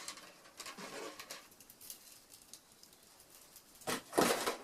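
Objects being handled on a tabletop: scattered light rustles and clicks, with a louder scrape or knock about four seconds in.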